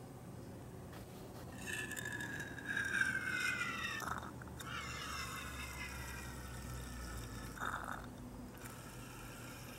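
Alcohol fuel squeezed from a small plastic squeeze bottle into a cat-food-can alcohol stove, with thin whistling tones that slide slowly downward, starting about two seconds in and again around the middle.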